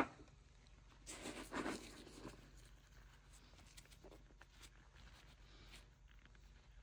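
Faint handling noises: a sharp click at the start, a brief rustle about a second in, then scattered light clicks.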